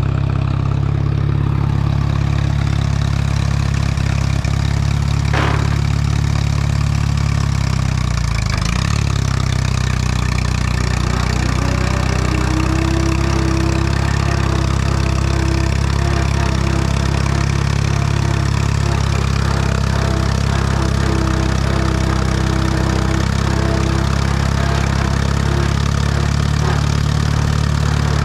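Allis-Chalmers WD tractor's four-cylinder engine idling steadily after being jump-started back to life. The engine note dips briefly and recovers about eight seconds in, with a single click shortly before.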